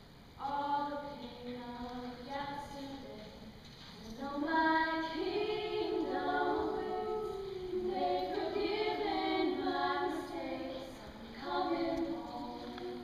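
Young women's voices singing unaccompanied, with sustained, gliding sung notes. One voice is heard at first, and the singing grows louder about four seconds in, when a second voice joins in harmony.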